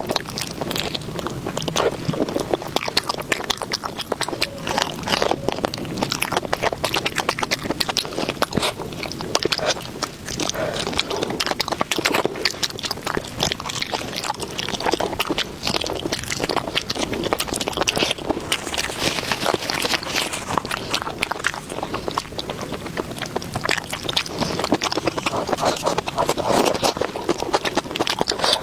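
A person chewing and eating food close to the microphone: a dense, irregular run of mouth clicks and smacks with no pauses.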